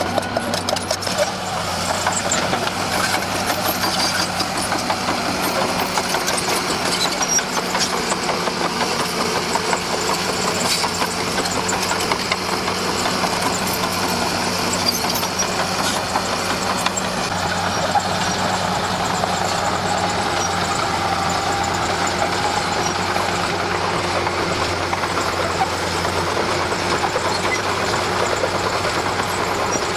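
Komatsu D41P bulldozer's diesel engine running steadily at working speed, with a few scattered clanks.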